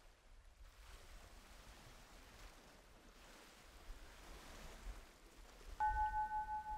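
Faint, even rushing noise like distant surf, with a low rumble that swells about four seconds in. Near the end a clear, steady tone sounds suddenly and holds for about a second.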